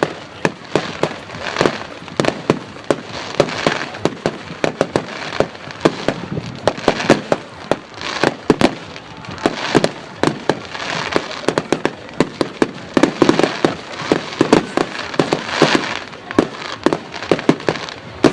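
Public firework display going off: a rapid, continuous run of sharp bangs and crackles, several a second, over a steady crackling hiss.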